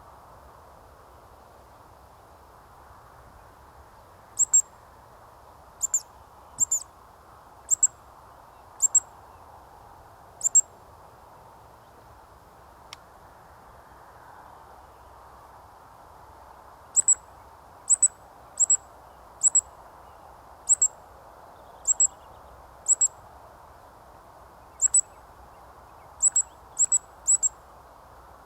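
Eurasian woodcock roding calls: sharp, very high 'tsiwick' squeaks as the bird passes over in its display flight. Each call is a quick double note, repeated about once a second in two runs, the first of six calls, the second of about eleven, over a steady faint hiss.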